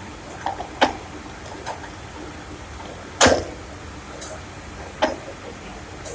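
Sharp knocks and clicks of tools and pump parts being handled during a diaphragm pump overhaul: about six separate strikes, the loudest about three seconds in, over a steady hiss.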